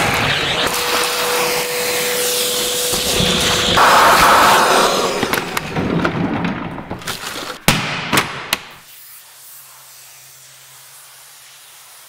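Vacuum running with a steady whine while its hose sucks up sawdust, for about the first four seconds. A rushing suction noise follows, then a few sharp knocks around eight seconds in as the dust canister is emptied into a trash can, after which only a faint low hum remains.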